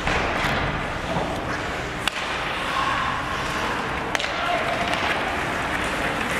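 Ice hockey play in an arena: skates and sticks on the ice with two sharp clacks, about two seconds apart, over players' and spectators' voices echoing in the rink.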